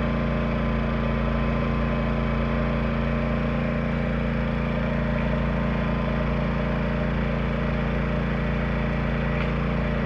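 Yamaha EF2000iS inverter generator's small single-cylinder four-stroke engine running at a steady speed, carrying the light load of a trailer air conditioner's fan while a soft-start module holds off the compressor.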